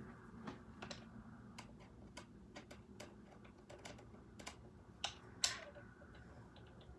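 Scattered light clicks and taps from the plastic parts of a toy RC car being handled and taken apart, irregular and sparse, with a louder click and a short scrape about five seconds in.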